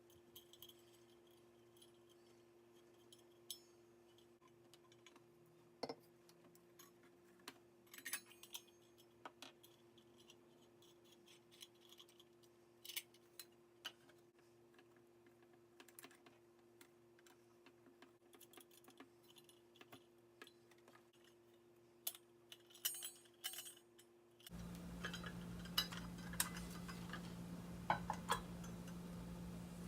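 Faint, scattered clicks and taps of small household items being handled and set down, over a steady low hum. About 24 seconds in, the background changes abruptly to a louder hiss, with a few sharper clicks after it.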